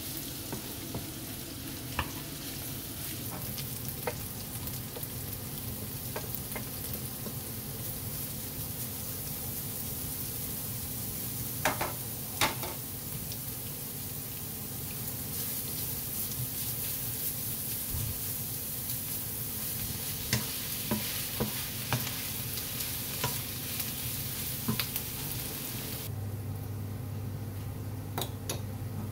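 Pork belly and onion sizzling in a frying pan, stirred with a wooden spatula that scrapes and knocks against the pan now and then. About three seconds before the end the sizzle drops away and a steady low hum is left.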